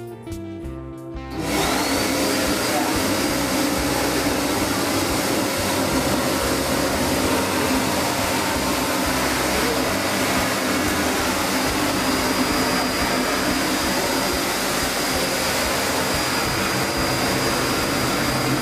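Eureka Forbes 20-litre wet-and-dry canister vacuum cleaner comes on suddenly about a second and a half in and then runs steadily while its floor brush is pushed over the floor. A high motor whine rises briefly as it spins up, then holds steady.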